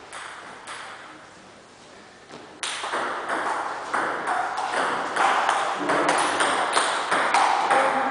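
Table tennis rally: the celluloid ball clicking off the bats and bouncing on the table, about two to three strikes a second, starting about two and a half seconds in and echoing off the hall's hard walls.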